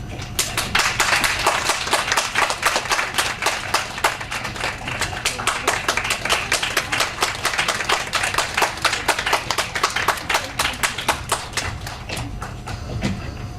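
Audience applauding: many hands clapping, starting about half a second in and dying down near the end.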